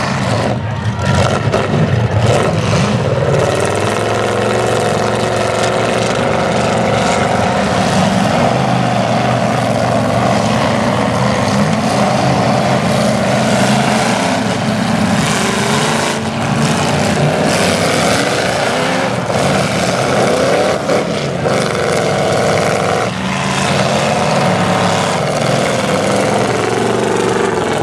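Several demolition derby cars' engines revving hard together, with now and then the bang of car bodies crashing into one another.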